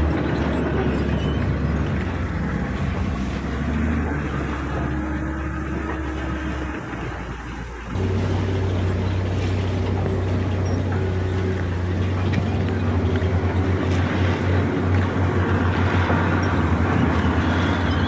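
Heavy bulldozer's diesel engine running under working load: a loud, low, steady drone. It sags a little about seven seconds in, then comes back suddenly a second later.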